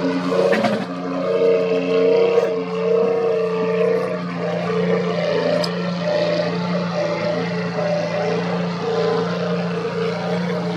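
Racing boat engines running at a steady speed: a constant droning tone over a hiss of water.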